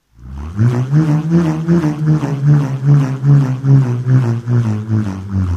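A low, buzzing drone made with a plant to imitate a superbike engine. It throbs in even pulses about two and a half times a second, like an engine revving.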